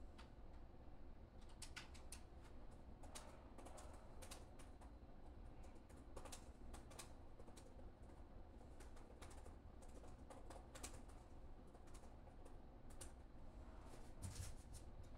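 Faint, irregular light clicks and taps coming in loose clusters, over a steady low hum.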